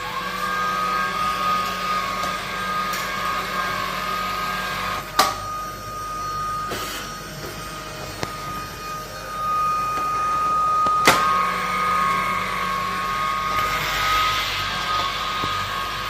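Cordless stick vacuum cleaner switching on and running with a steady high whine, the motor spinning up right at the start. Two sharp knocks, about five and eleven seconds in.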